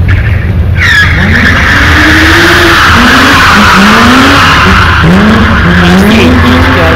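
BMW M3 Compact rally car drifting, its tyres squealing from about a second in until about five seconds. Under the squeal the engine revs up and down again and again.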